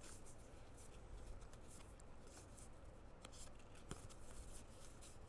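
Faint flicking and sliding of paper trading cards as they are leafed through by hand, with a couple of sharper ticks past the middle.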